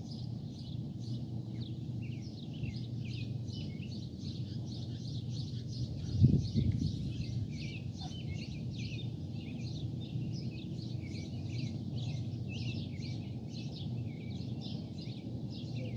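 Birds chirping many times a second over a steady low rumble, with one sharp thump about six seconds in.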